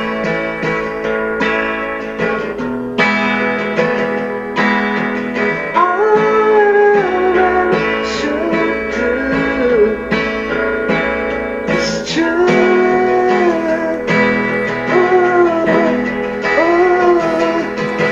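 A song with guitar and a singing voice, played back through a Plantronics Calisto 620 Bluetooth speakerphone.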